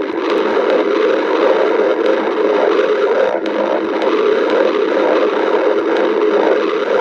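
A person's hungry stomach growling steadily without a break.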